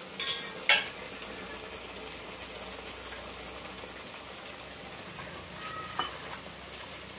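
Gravy sizzling as it cooks in an aluminium kadhai on a gas stove, a steady hiss, with two sharp utensil clinks near the start and another near the end.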